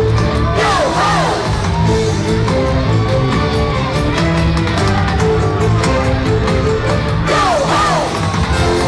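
Loud upbeat party music with a steady beat and sustained notes, with sliding high notes about a second in and again near the end.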